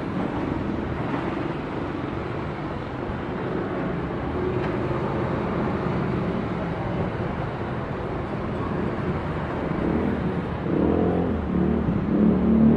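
Cessna 172 Skyhawk's four-cylinder piston engine and propeller droning steadily as the plane flies overhead, growing louder near the end.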